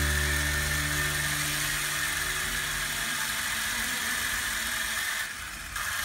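Toy remote-control helicopter's small electric motor and spinning rotor, a steady high whir with a thin whine, as it sits running on the floor. Low background-music notes fade out about a second in, and the whir dips briefly near the end.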